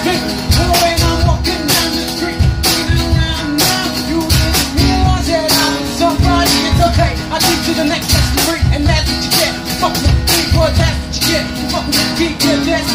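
Music with a steady beat and pulsing bass, and a man's voice singing over it.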